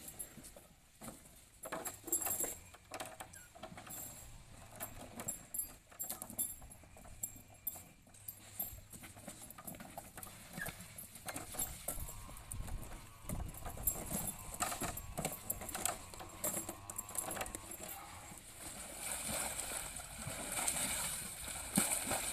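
An elephant playing with a rubber tyre hung from a wooden post: irregular knocks and scuffs as she pushes and kneels into it.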